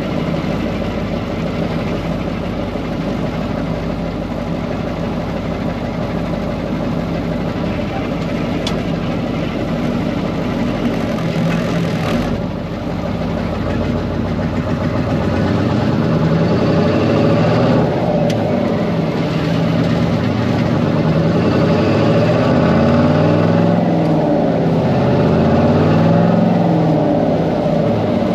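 Cummins V-555 'Triple Nickel' V8 diesel of a 1972 Brockway 358 truck pulling under way, heard from inside the cab. The engine note dips briefly about twelve seconds in, then rises and falls in pitch again and again in the second half as the driver works through the Spicer twin-stick gearbox.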